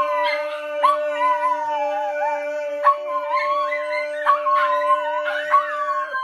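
A small dog howling, its wavering howl rising and falling over a man's long held low note; both stop about six seconds in.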